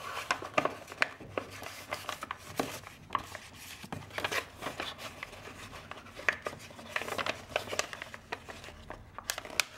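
A printed magazine page being folded and tucked by hand into a small paper bag: irregular crisp rustles and crackles of paper as the side folds are pushed into place.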